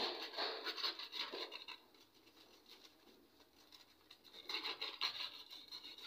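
Aluminium foil crinkling and tearing as a knife cuts open a foil packet, in two spells of quick, scratchy crackle: one at the start lasting under two seconds, and another about four and a half seconds in.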